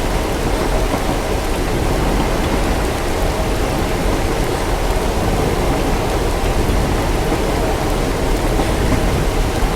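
Steady rain with a continuous deep rumble underneath, unchanging throughout.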